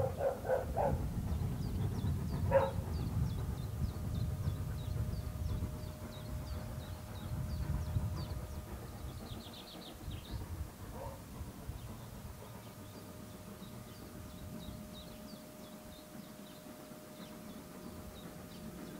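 A dog barking: a quick run of about four barks, then one more about two and a half seconds in. Under it a low rumble fades away over the first half, with small birds chirping.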